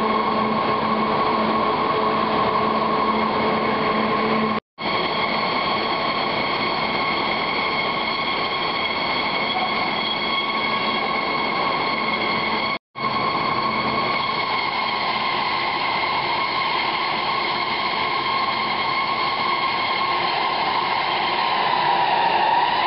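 Rubber-processing machinery in a factory hall running steadily: a loud mechanical drone with a high whine held over it. The sound cuts out for an instant twice, and the whine dips slightly in pitch near the end.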